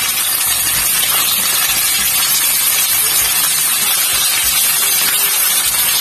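Hot cooking oil sizzling steadily in a frying pan as whole galunggong (round scad) are laid in to fry.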